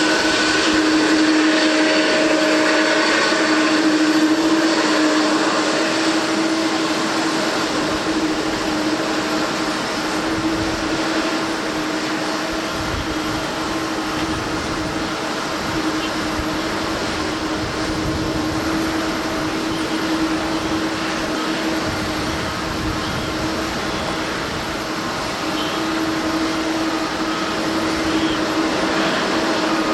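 Boeing 777-200ER jet engines running with a steady whine over a broad rush, and a low rumble joining in partway through.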